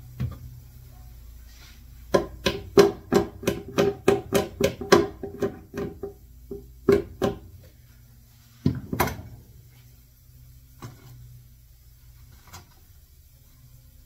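A tool tapping rapidly and repeatedly on a clamped wooden box to work a staple loose, about three to four ringing taps a second for several seconds. A pause follows, then two heavier knocks and a few faint single taps.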